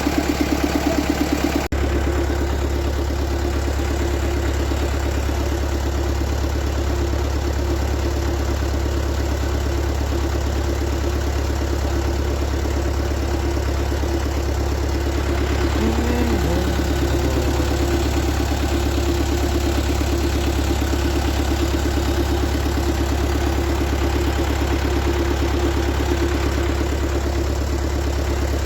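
A vehicle engine runs steadily with a low, pulsing drone. About two seconds in there is an abrupt break, then the drone carries on unchanged.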